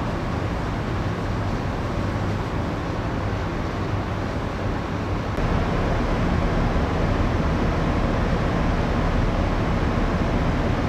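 Steady hum of a moored passenger-cargo ship's onboard machinery and ventilation heard inside the ship, with a low drone under an even rush of air. It gets a little louder about halfway through.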